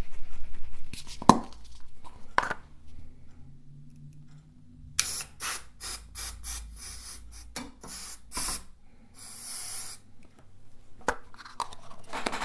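Aerosol can of plastic conformal-coating spray being sprayed onto a circuit board in a rapid series of short hissing bursts, then one longer hiss about nine seconds in. A few sharp knocks of handling come in the first couple of seconds.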